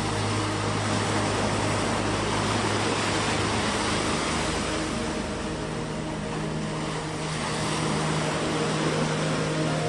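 Boat engine running over a steady rush of sea water and wind. The engine's hum shifts higher about five seconds in.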